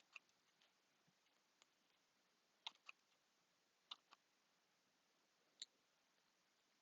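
Scissors snipping: a few faint, sharp clicks, mostly in pairs, spaced a second or more apart.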